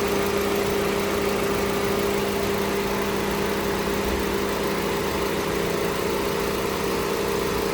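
Nissan QG18 1.8-litre four-cylinder engine idling steadily, with an even hum.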